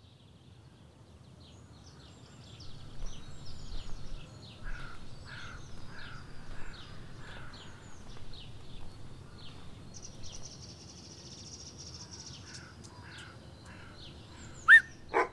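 Birds chirping over a low steady background rumble, with a crow cawing about six times a few seconds in. Near the end come two short, sharp, loud sounds.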